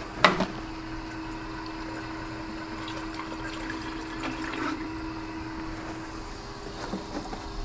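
PC water-cooling pump running with a steady hum as coolant flows through the loop and trapped air gurgles through it while the loop fills and bleeds. A sharp click sounds shortly after the start.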